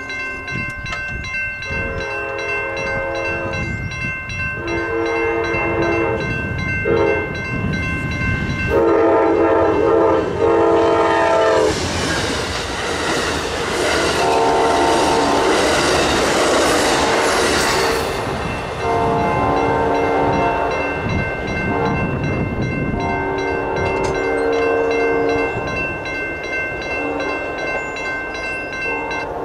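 Amtrak P42DC diesel locomotive's horn sounding a series of long blasts, loudest just before the train reaches the crossing. The train then passes with a loud rush and wheel clatter, and fainter horn blasts follow. Throughout, the crossing's electronic bell rings steadily with a fast, repeating ding.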